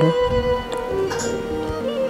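Slow background music with a long held note and quieter accompanying notes.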